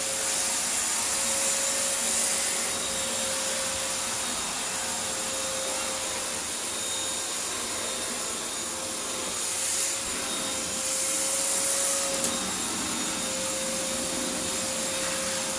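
Vacuum cleaner motor running steadily, a constant rushing airflow with a steady whine.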